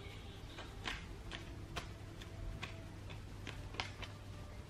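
A tarot deck shuffled by hand, the cards giving irregular sharp clicks and flicks, about two a second.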